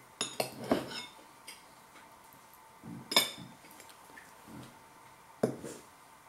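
Knife and fork clinking and scraping against a ceramic bowl while cutting a cheese cobbler: a quick run of clinks in the first second, then single sharper clinks about three seconds in and again near the end.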